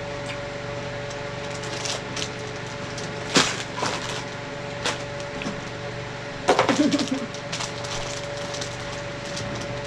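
Crackling and crinkling of snack packaging being handled and opened, with one sharp crack about a third of the way in and a louder burst of crackling about two-thirds in, over a steady fan hum.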